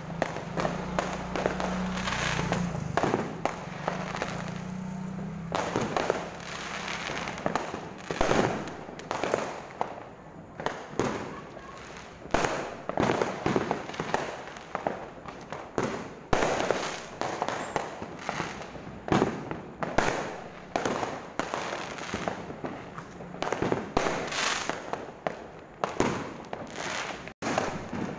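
Aerial fireworks going off all around: a continuous, irregular run of overlapping bangs and crackles, several a second.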